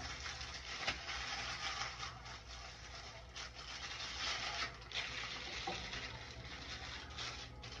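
Aluminium foil crinkling and crackling in irregular bursts as it is pressed and folded by hand into a cap over dyed hair.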